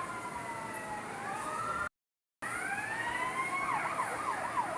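Emergency vehicle siren: a slow falling wail, broken by half a second of dead silence about two seconds in, then a rising wail that switches to a fast up-and-down yelp.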